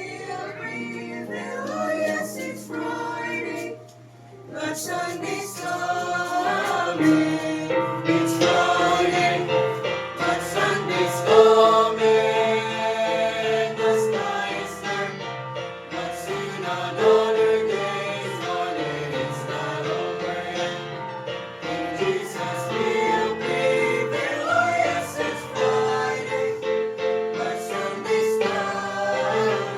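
A group of voices singing a gospel song in chorus over a recorded music accompaniment.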